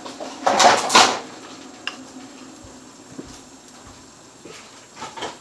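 Kitchen handling noise while green pancake batter is poured from a bowl into a pan: a brief loud scraping rustle about half a second in, then a few faint clinks of the bowl and utensil.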